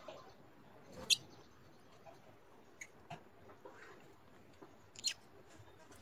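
Lutino peach-faced lovebirds giving two short, shrill, high-pitched chirps, one about a second in and one near the five-second mark, with faint small ticks in between.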